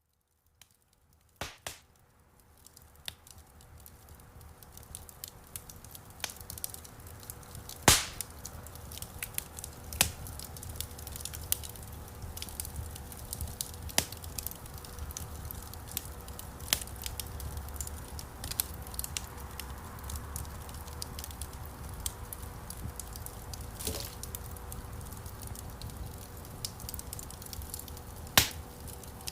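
Wood campfire crackling and popping, fading in from silence a second or two in. Sharp pops are scattered through it, the loudest at about eight seconds and near the end, over a steady low rumble of burning.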